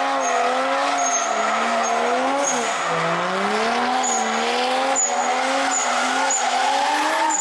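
BMW E46 drift car's swapped 1JZ-GTE turbo straight-six held at high revs, its pitch swinging up and down with a sharp dip about three seconds in, over tyres skidding.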